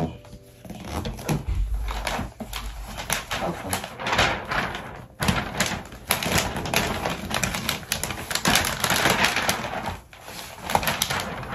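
Christmas wrapping paper being unrolled and handled, rustling and crinkling in irregular bursts, with short lulls about five and ten seconds in.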